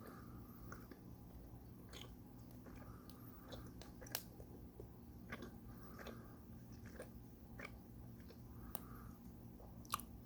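Close-miked chewing: faint wet mouth clicks and smacks at irregular intervals, with a sharper click about four seconds in and another near the end.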